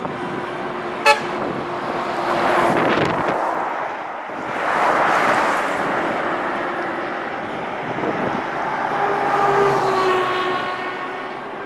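Road traffic: motor vehicles passing one after another, each swelling and fading, with a brief sharp click about a second in.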